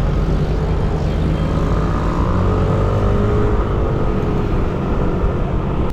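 Steady wind rumble on a GoPro's microphone while riding a Yamaha NMAX scooter as it speeds up through traffic. A faint engine whine rises and then falls in the middle.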